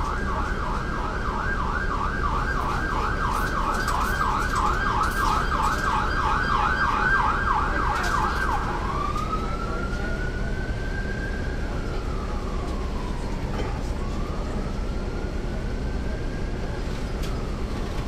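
An emergency-vehicle siren sounds a fast yelp, then about halfway through switches to a slow rising and falling wail. Under it runs the steady low rumble of a NABI 40-SFW transit bus with its Caterpillar C13 diesel, heard from the back seat.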